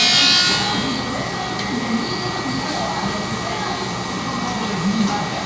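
Steady whooshing background noise with a faint, thin, high whistle running through it.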